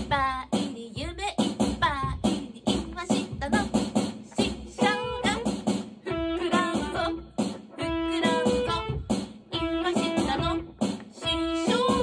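Electric guitar playing a song while a woman sings into a microphone, with held notes in the second half.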